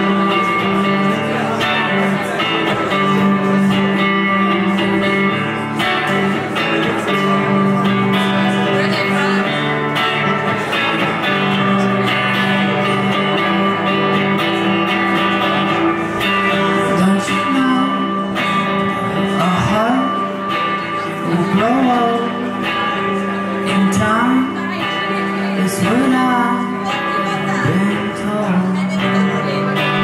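Stratocaster-style electric guitar played live, ringing out held chords and notes; in the second half the notes slide up and down in pitch.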